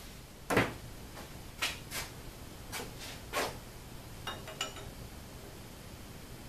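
Workshop handling noise: a string of separate knocks from tools and parts being moved, the loudest about half a second in, then two short metallic clinks with a brief ring a little after four seconds, as small fasteners are handled at an aluminium plate.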